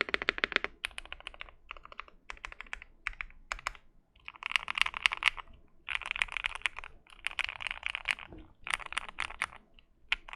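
Typing sound test on a Keychron Q1 aluminium mechanical keyboard, modded with three layers of tape, PE foam under the switches and PE foam in the bottom case to cut the case ping. Quick runs of keystrokes clatter in bursts about a second long, with short pauses between.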